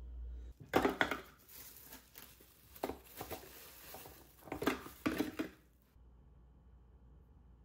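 Frozen banana pieces and frozen coconut milk cubes being dropped into a plastic food processor bowl: a handful of hard clunks and knocks, the loudest about a second in and near five seconds in, with some handling rustle between.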